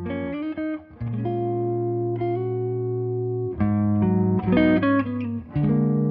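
Instrumental music led by a guitar, playing long held notes that change every second or so, with no singing.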